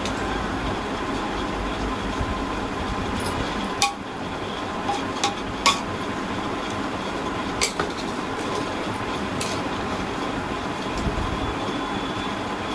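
Steady rushing kitchen noise with a handful of sharp metal clinks, like a spoon or ladle knocking against a cooking pot, about four seconds in, twice more around five to six seconds, and once near eight seconds.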